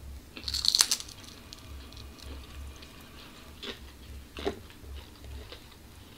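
Biting into a piece of crispy fried food: a loud crunch about half a second in, followed by quieter chewing and a couple of small clicks.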